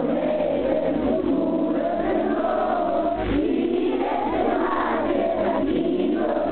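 A group of children and adults singing together in chorus, with long held notes that rise and fall.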